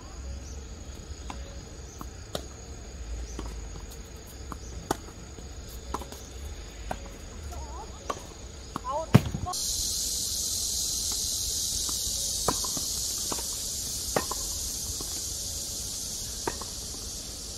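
Tennis balls hit by rackets and bouncing on a hard court: sharp pops about every second, the loudest about nine seconds in. From about halfway a steady high hiss of insects sets in.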